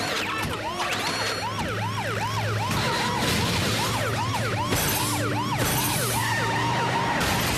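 Several police car sirens yelping together in fast rising-and-falling sweeps at different pitches, over a low engine hum. Bursts of harsh hissing grind come in around the middle and near the end as the cars scrape together.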